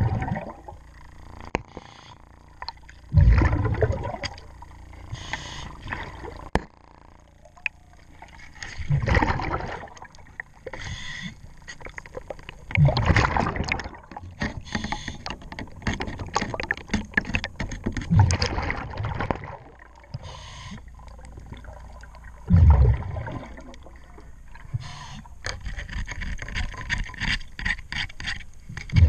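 A diver's exhaled breath bubbling out of the regulator in loud rumbling bursts about every four to five seconds. Between the breaths comes a clatter of scraping and scrubbing as a hull-cleaning pad works along the boat's underwater hull.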